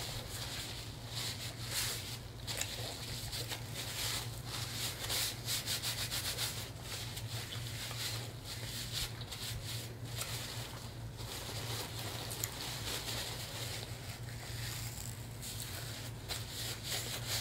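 Paper napkin rubbing and crinkling as fingers are wiped clean, a continuous run of short scratchy rustles over a steady low hum.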